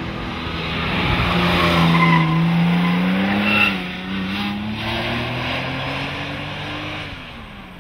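Porsche 911 Turbo's turbocharged flat-six pulling hard past, its pitch rising, dipping briefly near the middle at a gear change, rising again, then falling and fading as the car drives away. Short tyre squeals come around two and three and a half seconds in, as it turns into a hairpin.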